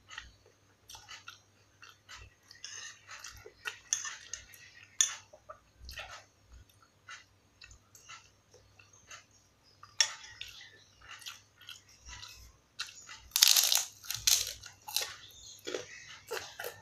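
Mouth sounds of a person chewing a mouthful of rice with young papaya vegetable, in short irregular strokes. About thirteen seconds in comes a loud burst of crunching as a kerupuk cracker is bitten and chewed.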